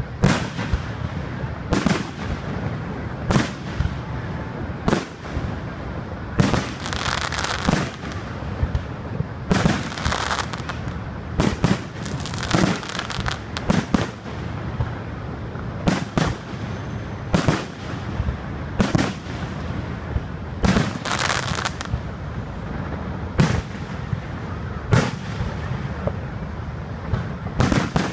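Aerial firework shells bursting, a sharp bang about every second and a half, with several stretches of denser crackling lasting a second or two.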